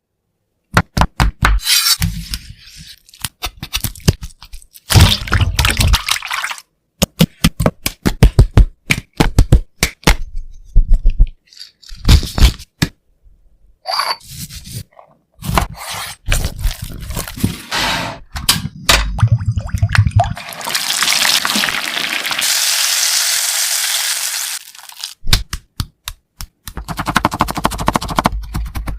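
Kitchen preparation sounds: many sharp knife and utensil knocks and scrapes on a cutting board, in quick runs with short pauses. Partway through comes about four seconds of steady hissing rush, like oil sizzling or liquid pouring, before the knocking resumes.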